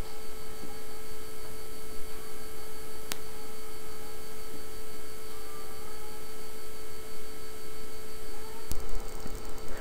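Steady electrical hum: one constant mid-pitched tone over a faint hiss, with a single click about three seconds in.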